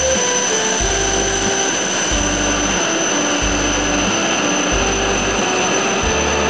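E7/W7-series Shinkansen train moving slowly along the platform, a steady hiss with a high, even whine. A tune of held notes over a pulsing bass plays at the same time.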